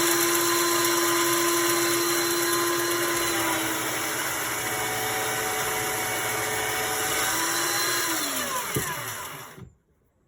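Belt sander running at full speed with a steady high whine, sanding a board down to a scribed line; its pitch drops a little for a few seconds midway. It is switched off near the end and winds down to a stop.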